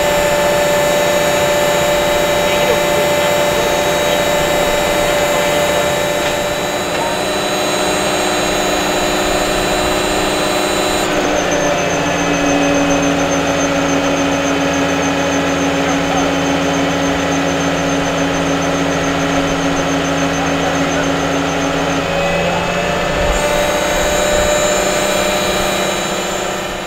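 Marine travel lift's engine and hydraulic drive running steadily. About eleven seconds in its pitch shifts and a higher whine joins, changing back about 22 seconds in as the hoist works its slings; the sound falls away at the very end.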